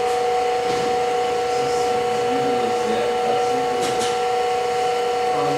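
Small electric drive motor of a model elevator running steadily as it moves the car along the shaft: a constant whine with two clear steady pitches.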